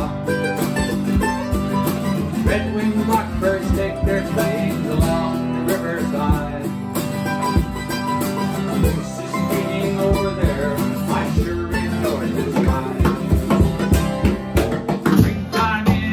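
Acoustic country-bluegrass band playing an instrumental break: a strummed acoustic guitar and a picked mandolin over a steady drum beat with cymbal.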